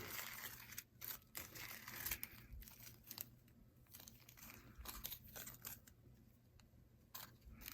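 Small plastic bags of diamond-painting drills crinkling and rustling as they are handled, with scattered light clicks.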